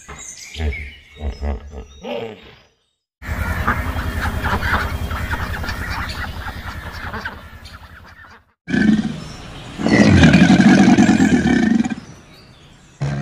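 Three different animal calls one after another, split by short silent cuts: a run of short calls, then a long rapidly pulsing low call, then a loud drawn-out call about two-thirds of the way in.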